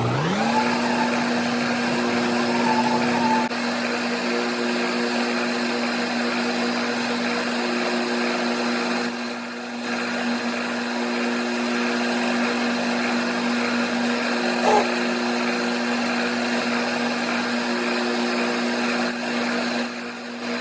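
Milling machine running with a steady whine as it hand-mills an arced groove in 1/2-inch steel plate, the pitch rising quickly right at the start as the spindle comes up to speed. The sound cuts off sharply near the end.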